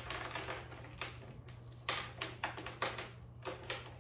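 Small rocks clicking and clattering as they are picked and scraped out of a plant's root ball onto a table, in quick irregular taps.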